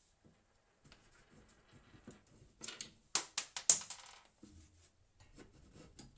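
Small hard parts being handled: scattered light clicks, then a quick cluster of sharp clicks and rattles about halfway through.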